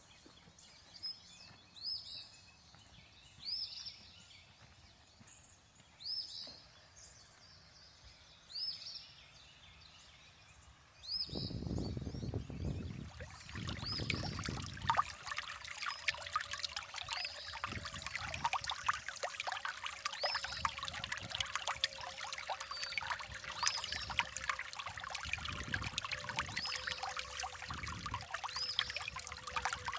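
A bird calls over and over with short upswept notes. About eleven seconds in, flowing creek water comes up, trickling and splashing over stones, with a few low thumps and a faint steady hum beneath, while the bird calls go on.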